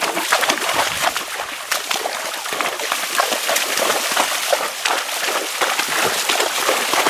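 Horses' hooves splashing and sloshing through shallow marsh water as they wade, a steady run of irregular splashes.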